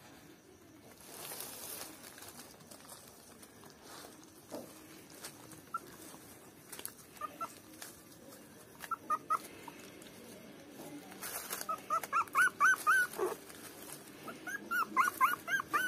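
Newborn puppies squeaking and whimpering while they nurse, in short high cries that come sparsely at first and then in quick runs during the second half.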